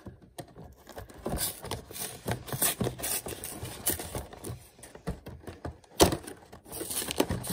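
A cardboard trading-card collection box being opened by hand: irregular scrapes, taps and clicks as the lid flap is worked loose, with a sharper knock about six seconds in.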